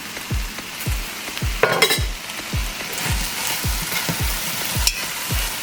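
Vegetables (bodi, long beans) sizzling in a pot with a steady frying hiss, and a brief clatter about two seconds in. Under it runs background music with a steady beat of about two and a half low thumps a second.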